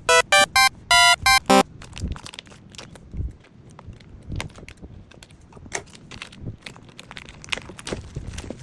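A quick run of about six short electronic beeps in the first second and a half, then crinkling and light taps and knocks of cardboard and plastic packaging being handled as a box is opened.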